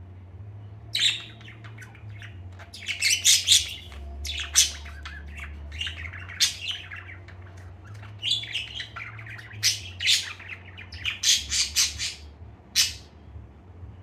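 Pet budgerigar chirping: runs of short, sharp chirps in clusters, starting about a second in and stopping shortly before the end, over a low steady hum.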